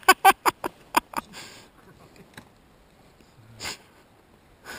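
A quick run of about six short, breathy vocal bursts from a person in the first second and a half, like huffing out breaths or laughing. Two more single breathy puffs come later, one near the end.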